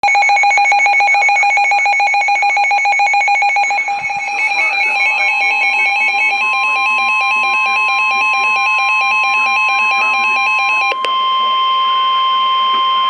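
Emergency Alert System attention tones: a rapidly pulsing electronic beep that changes its pattern about four seconds in. A steady tone near 1 kHz, the NOAA Weather Radio warning alarm tone, joins about five seconds in and carries on alone with a higher steady tone once the pulsing stops near eleven seconds.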